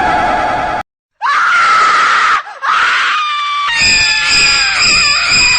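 Screaming sound effect: after a brief silent gap, two long high screams, then from about three and a half seconds in several screams layered together, holding high pitches.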